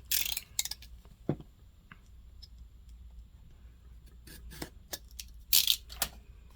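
A tight cardboard box being worked open by hand: short scraping, rustling bursts near the start and again near the end, with a sharp knock a second in and small clicks and taps between.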